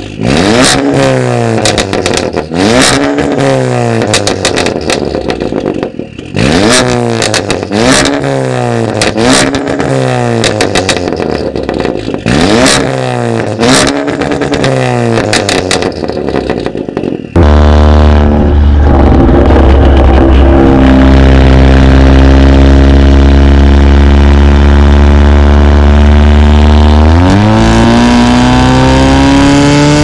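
Audi A4 B9 with an Armytrix turbo-back valvetronic exhaust, revved in a dozen or so quick blips, each falling back with loud pops and crackles from the exhaust. About two-thirds of the way in it changes suddenly to one loud sustained pull, with heavy low rumble, its pitch climbing slowly and then faster near the end.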